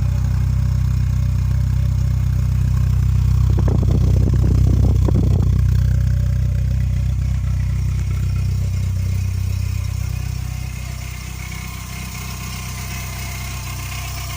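Volkswagen Golf Mk2 GTI four-cylinder engine idling steadily, with the noise of a bad alternator bearing. It runs briefly rougher and louder about four seconds in, and gets quieter about ten seconds in.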